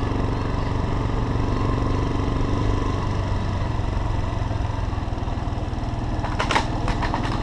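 Motorcycle engine running steadily while riding slowly over a dirt road, with a few short knocks about six and a half seconds in.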